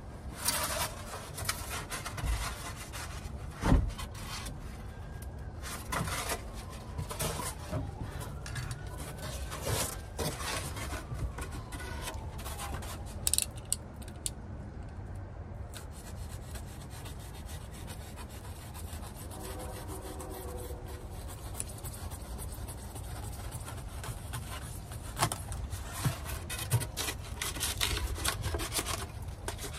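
Rigid foam insulation board rubbing and scraping as pieces are handled and fitted into a metal bed frame, with scattered knocks and one sharper knock a few seconds in. It is busiest early and near the end and quieter in the middle.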